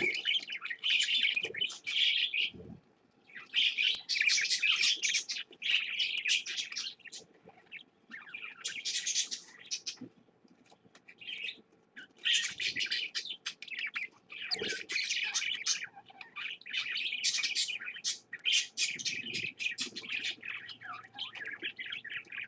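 Budgerigars chirping and chattering in rapid bursts of a second or two, with short pauses between them.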